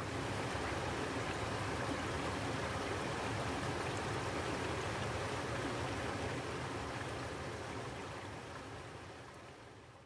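Mountain stream water rushing steadily, fading out near the end.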